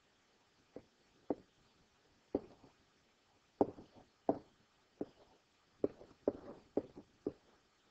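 Pen tips tapping and knocking on an interactive whiteboard surface while digits are handwritten: about ten short, sharp knocks at irregular intervals.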